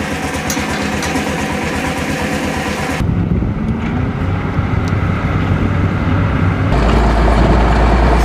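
Heavy diesel engines of road-construction machinery running with a steady low rumble, in three cut-together shots that change abruptly about three seconds in and again near seven seconds, the last with a strong deep hum.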